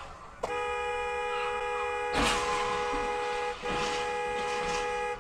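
A vehicle horn blaring steadily, briefly cut off about three and a half seconds in. A loud crash of a vehicle collision comes about two seconds in and is the loudest sound.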